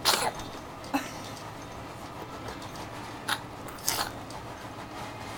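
A pet sneezing four times in short, sharp bursts, the first the loudest. The owner takes them for fake sneezes.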